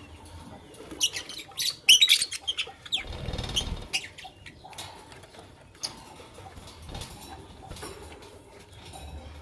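Lovebirds giving a quick cluster of sharp, high-pitched chirps about one to four seconds in, with a brief flutter of wings in the middle of it; afterwards only a few faint chirps and clicks.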